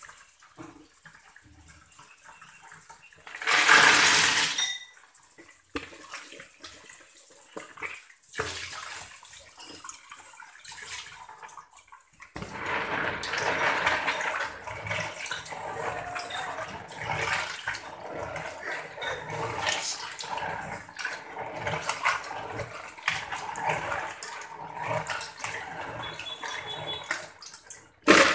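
Tap water runs faintly into a plastic basin, with one brief, loud rush of water about four seconds in. From about twelve seconds on, a hand scrubs freshwater snails in the basin: water sloshing, with a busy clatter of small shells knocking together.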